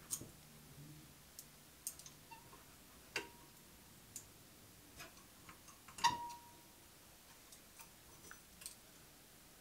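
Thin steel pallet knife working in under the edge of a 3D print on the printer's build plate. It makes faint, scattered small clicks and scrapes, with two louder clicks about three and six seconds in, each followed by a short metallic ring.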